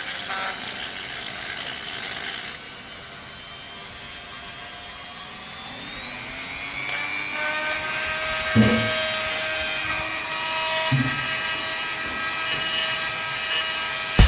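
Ingco mini grinder's motor spinning up, its whine rising in pitch over a few seconds, then running at a steady high pitch. Two low thumps come partway through.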